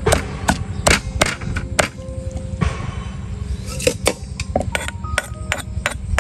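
Knife chopping on a wooden cutting board: irregular sharp chops, about two to three a second, some with a brief metallic ring from the blade. There is a short break in the chopping about halfway through.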